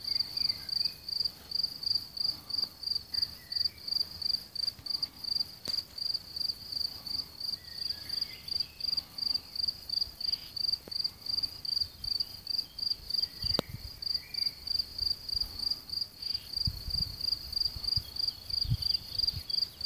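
Cricket song: a steady, even run of short high chirps, about three a second, taken for a European mole cricket (turkuć podjadek). A few soft low bumps come in the second half.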